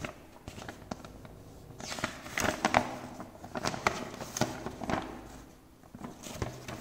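Paper instruction manual rustling and crinkling as it is handled, its pages flipped and the sheet unfolded, in a run of crisp crackles from about two seconds in.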